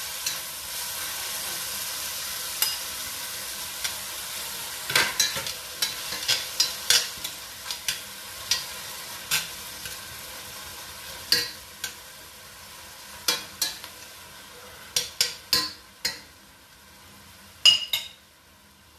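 Shrimp frying in butter in a stainless steel pan, sizzling, while a spoon stirs them and clicks against the pan at irregular moments. The sizzle grows fainter over the second half.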